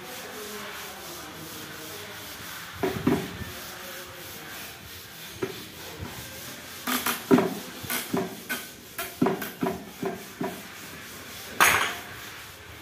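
Hand woodworking on a laminated board edge: a rubbing, scraping sound for the first couple of seconds, then about a dozen sharp, irregularly spaced knocks of a hammer striking a chisel into the wood, one of the loudest near the end.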